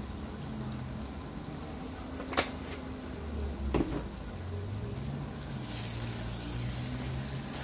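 Two sharp clicks about a second and a half apart near the middle. Then, from about three-quarters of the way in, a steady sizzling hiss as ground spices are stirred with a wooden spoon into onions frying in a steel pot.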